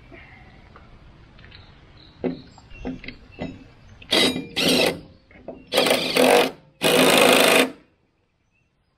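Impact wrench hammering in three short bursts of under a second each, after a few sharp knocks, working the blade bolts on a Toro zero-turn mower's cutting deck.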